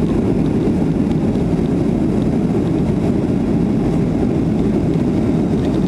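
Steady cabin noise inside a Boeing 737-300 in flight: a continuous low rumble of its CFM56-3 turbofan engines and the airflow over the fuselage, with no change in level.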